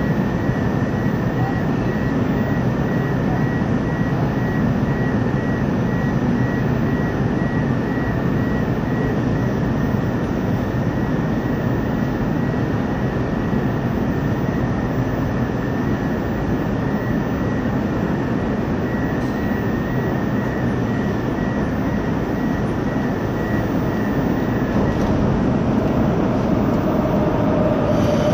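Steady hum and rush of a Moscow metro train standing at an underground platform with its doors open, its onboard equipment running, and a faint pulsing high tone. Near the end a rising whine sets in.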